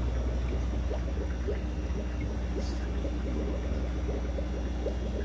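Water dripping and trickling from a fish net into a tote of water, an irregular run of small plinks, over a steady low hum.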